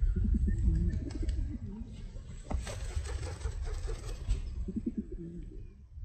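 Feral rock pigeons cooing: low, wavering coos through the first couple of seconds and again near the end. A stretch of rustling noise comes in the middle, all over a steady low rumble.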